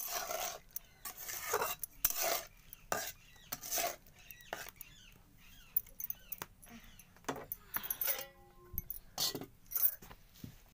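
A spatula scraping and clinking irregularly against an aluminium kadai while stirring a watery vegetable curry. A metal lid is set on the pan near the end.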